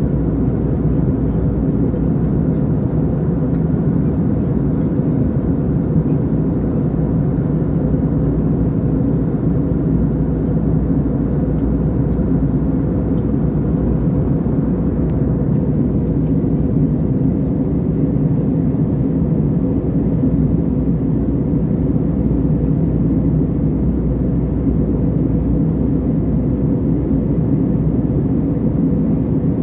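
Aeroplane in flight heard from inside the cabin: a steady low rumble of engine and airflow noise, with faint steady hum tones.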